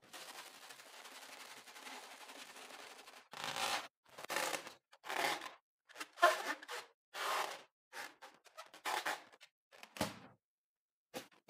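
A slime-filled rubber balloon squeezed in the hands, giving a run of short squishing sounds about once a second, after a faint steady hiss. About ten seconds in there is one duller knock.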